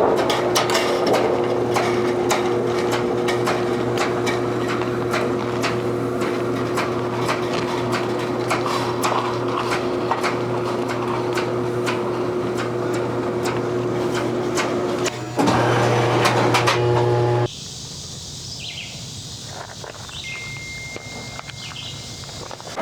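A steady mechanical hum with many sharp clicks and taps over it. It gets louder for a couple of seconds, then cuts off suddenly to a quieter background with a brief high tone.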